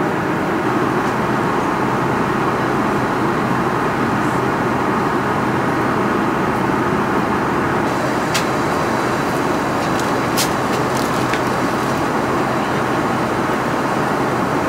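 Steady in-flight cabin noise of an airliner: an even rush of engines and airflow with a low hum beneath it. A couple of brief clicks come about eight and ten seconds in.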